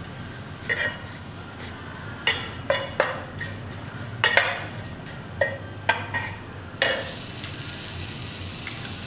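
Crisp crunches and clicks, about ten in the first seven seconds, as a fried banana worm is bitten and chewed, over a steady sizzle of frying.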